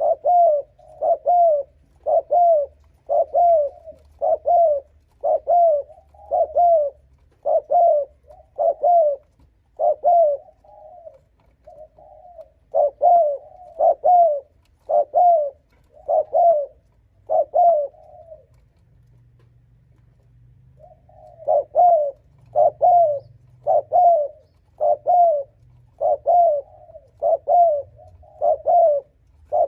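Spotted dove cooing fast and insistently in short paired coos, about two notes a second, with a pause of a couple of seconds after the middle before it starts again. This is the rapid 'gù' coo used to provoke wild doves.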